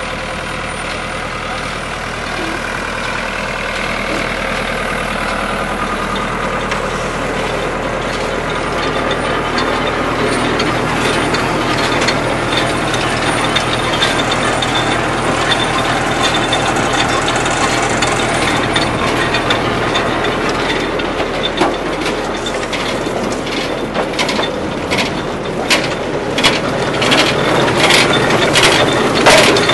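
A Grimme HLS 750 trailed potato harvester at work behind a Fiat 65-94 tractor: the tractor's diesel engine runs steadily under the rattle of the harvester's chain sieve webs. Potatoes tumble down the webs with frequent sharp knocks and clatter, getting busier over the last several seconds.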